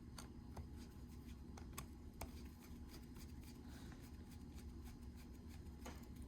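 Faint, scattered light clicks of small ratchet parts and screws being handled during reassembly, over a low steady hum.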